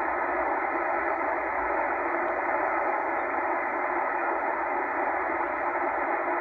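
Shortwave receiver's speaker giving a steady hiss of band noise in USB mode while it is tuned across an empty stretch of the band around 14.7 MHz; no station is heard.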